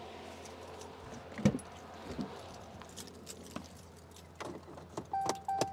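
The driver's door of a Ram 1500 pickup unlatches with one sharp click about a second and a half in, followed by lighter knocks and handling sounds. Near the end the truck's cab gives two short electronic warning beeps.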